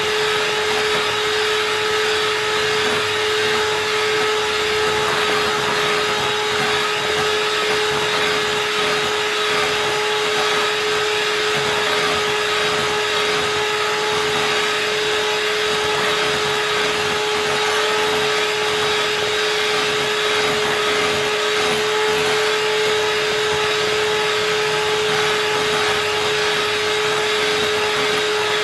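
Electric hand mixer running at one steady speed, its beaters whipping cream cheese with powdered sugar and whipping cream in a glass bowl into a frosting base. The motor holds a steady whine at one pitch under the whirr of the beaters.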